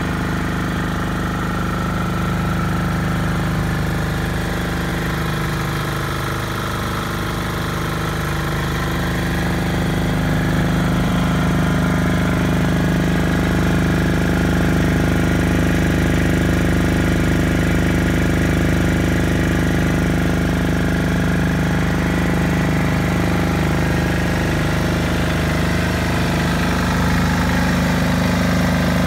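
Single-cylinder, air-cooled, four-stroke KHD (Deutz) F1L210D diesel engine of a 6.5 kW military generator set running steadily, with no change in speed. It grows somewhat louder about ten seconds in.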